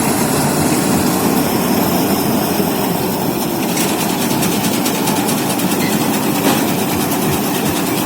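Hira 785 combine harvester running, a loud, steady machine noise that does not change.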